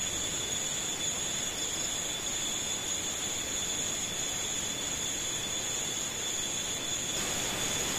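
Evening insects calling in a steady, unbroken high-pitched chorus over the even rushing of a flowing stream. The rushing grows slightly louder near the end.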